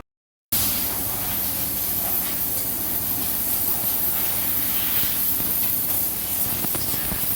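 Pressure washer spraying water onto a motorcycle, a loud, steady hiss over a low machine hum, starting abruptly about half a second in.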